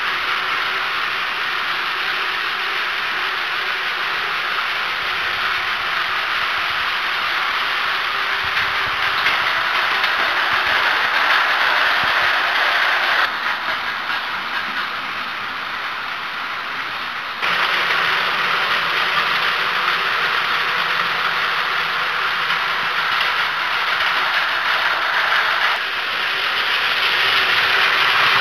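Battery-powered Plarail toy trains running on plastic track: a steady mechanical whir and rattle of the small motors and wheels. The sound drops quieter for a few seconds about halfway through, then comes back up.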